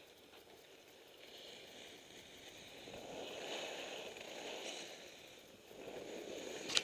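Skis sliding and scraping over packed, groomed snow, swelling louder through turns about three seconds in and again near the end. A single sharp click comes right at the end.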